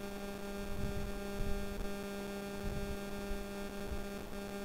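Steady electrical hum: a constant drone with many evenly spaced overtones, over a faint hiss.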